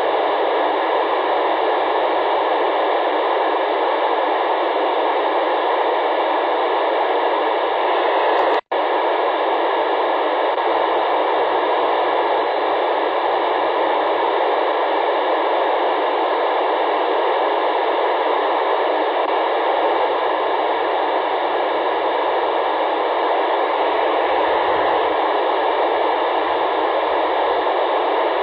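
FM radio receiver hiss with the squelch open, no station heard on the SO-50 satellite's downlink frequency; a steady rushing noise that cuts out for an instant about nine seconds in.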